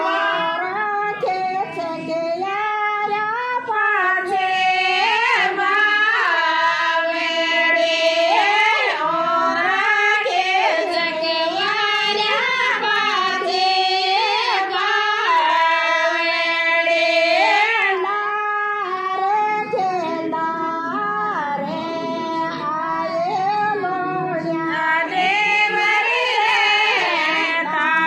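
Women singing a devotional folk song to Tejaji Maharaj, one continuous melodic line with long drawn-out, wavering notes.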